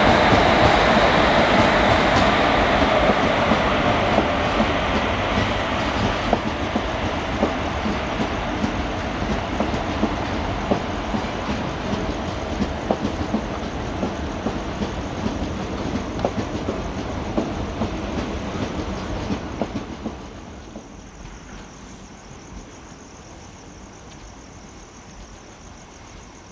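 Express train hauled by a WAP-4 electric locomotive running through at speed, its coach wheels clattering over the rail joints in a regular clickety-clack. The sound is loudest at the start as the locomotive passes, fades gradually as the coaches go by, and drops away about twenty seconds in as the last coaches pass.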